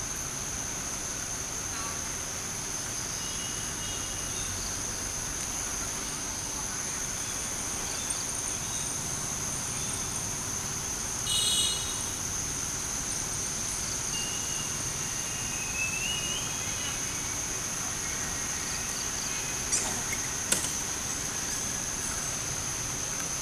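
Steady high-pitched insect drone in forest, a constant shrill buzz throughout. Over it are a few short chirps, a brief sharper call about eleven seconds in, and a couple of clicks near the end.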